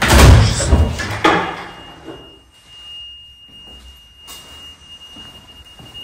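A building's fire alarm system giving a thin, steady, high-pitched electronic squeal. A loud burst of knocking and rustling fills the first second and a half.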